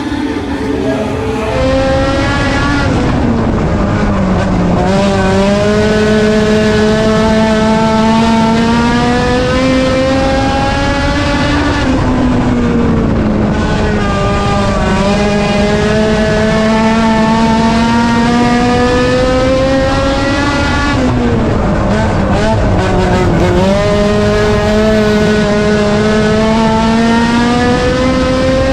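A race car's four-cylinder engine running hard lap after lap. Its pitch climbs slowly along the straights and drops sharply about three times as the driver lifts for the turns.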